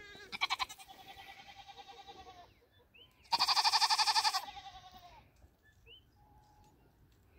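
Nigerian Dwarf goats bleating: a long wavering bleat, then a louder, shorter one about three seconds in.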